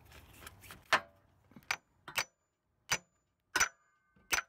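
Hammer blows on the steel inner joint of a CV axle, six sharp metallic strikes with a brief ring, about two-thirds of a second apart. They are knocking the axle loose from its splined shaft.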